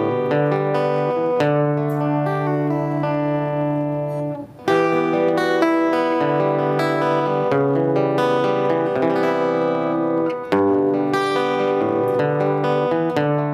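Guitar music: a plucked guitar playing held chords over a sustained low note, briefly dropping out about four and a half seconds in and again about ten and a half seconds in.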